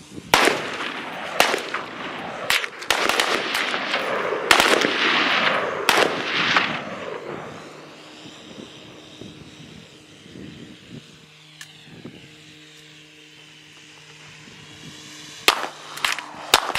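Rapid gunfire from several shooters firing at a drone: many overlapping shots for about the first seven seconds, then a lull with a faint steady hum, then a few more shots near the end.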